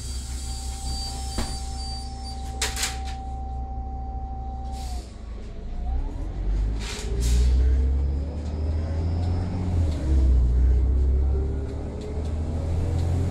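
Irisbus Citelis CNG city bus heard from inside: over a steady high tone, the pneumatic doors let out two sharp air hisses. Then, about five seconds in, the natural-gas engine's note rises with a deep rumble as the bus pulls away from the stop and accelerates.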